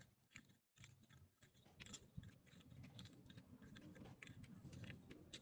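Near silence with faint, irregular small clicks and rustles.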